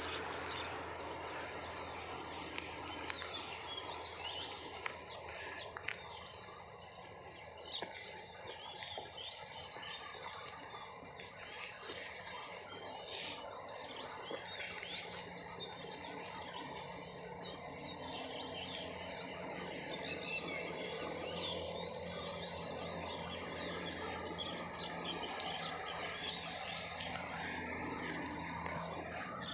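Outdoor ambience: many short bird chirps over a steady low hum.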